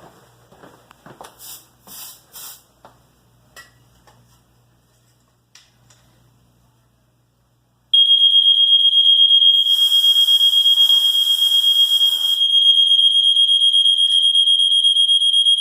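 Faint clicks and knocks, then about eight seconds in an electronic alarm sounder starts with a loud, continuous high-pitched tone that holds to the end. A hiss sounds over it for a few seconds in the middle.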